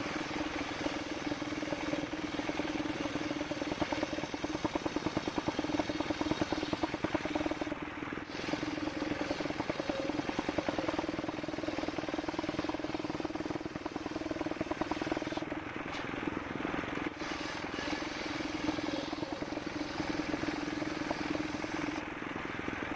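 Engine of a mobile circular sawmill running steadily, a fast, even pulsing under a steady hum.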